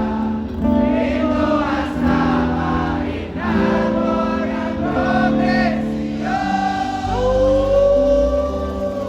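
Live band playing while a crowd sings along loudly in chorus, ending on a long held note near the end.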